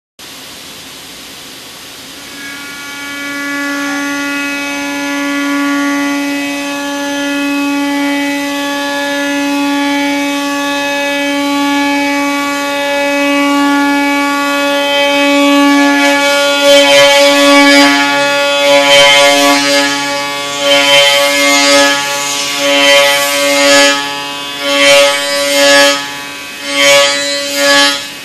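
Machining-centre spindle running with a steady whine. From about halfway, a milling cutter with SiAlON ceramic inserts cuts dry into Inconel 718 in helical milling, adding a loud harsh cutting noise that swells and fades about once a second.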